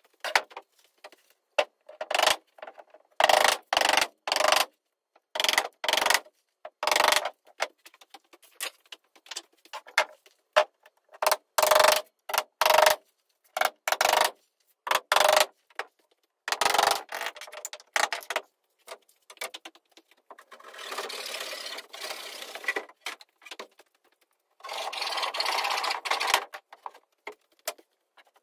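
Wood rubbing and scraping as battens and sheathing boards are handled on a framed wall, in a series of short bursts. Near the end come two longer stretches of steady scraping.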